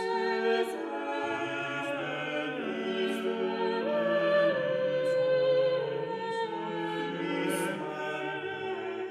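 Choral music: several voices singing slow, held chords that move step by step.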